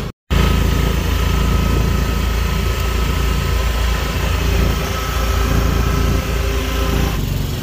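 Auto-rickshaw engine running steadily, heard from the open rear seat, with road noise. The sound cuts out for a moment just after the start.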